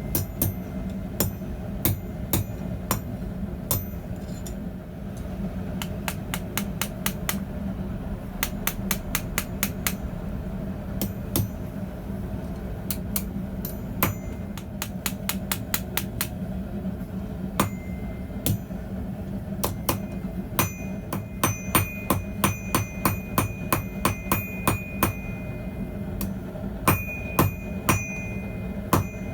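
Hand hammer striking hot steel on a small bread loaf anvil in quick runs of blows with short pauses between. From about twenty seconds in, the strikes ring with a clear high tone. A steady low hum runs underneath.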